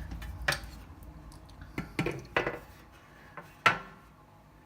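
The side cover of a Lenovo IdeaCentre 510 desktop tower knocking and clicking as it is wiggled loose and pulled off. There are about four separate knocks, and the loudest comes near the end.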